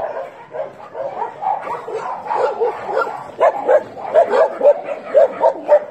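Dogs barking and yipping as they play, a run of quick short barks coming louder and faster in the second half.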